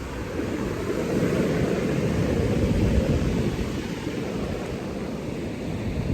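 Wind blowing across the microphone, a steady low rumble.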